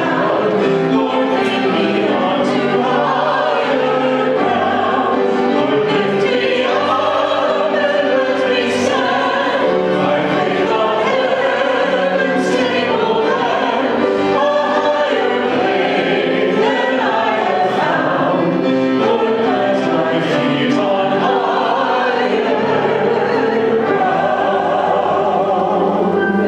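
Choir singing with instrumental accompaniment, a steady sustained choral piece.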